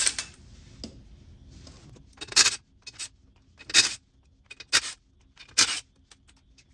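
Short scrapes and clinks of hard objects being handled and set down: four louder ones about a second apart, with a few fainter clicks between.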